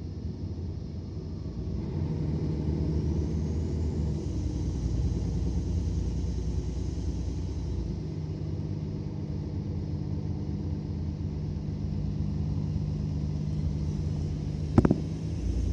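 Mercedes-Benz Citaro O530 city bus's diesel engine running under way, heard from inside the passenger cabin as a steady low rumble. It grows louder about two seconds in, and a single sharp knock sounds near the end.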